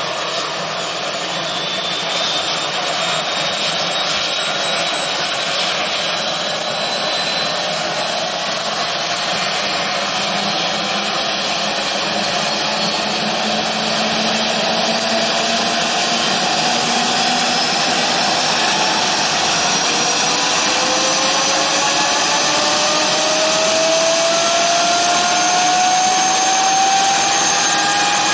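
Eurocopter AS365 N2 Dauphin helicopter starting up: the Turbomeca Arriel turboshaft spools up with a turbine whine that climbs steadily in pitch and grows a little louder as the main rotor comes up to speed.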